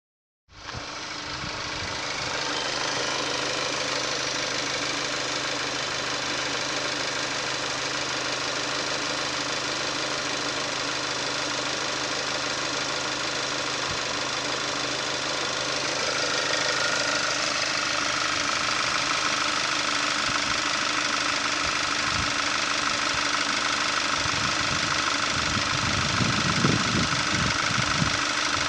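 2018 Hyundai i30's 2.0-litre GDi four-cylinder petrol engine idling steadily under the open bonnet. A steady higher whine joins about halfway through, and a few low rumbles come near the end.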